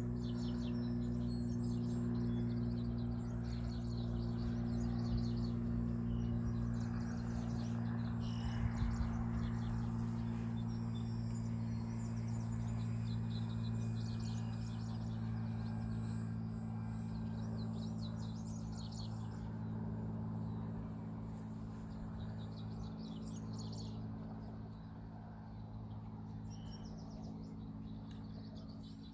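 Twin brushless electric motors with 9-inch propellers on an RC plane, droning steadily in flight; the drone fades somewhat near the end. Birds chirp and insects call throughout.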